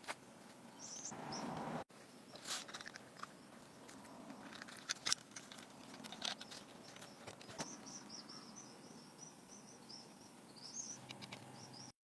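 Scattered light clicks and taps, with small birds chirping in the background. A short hiss swells in the first two seconds and cuts off abruptly.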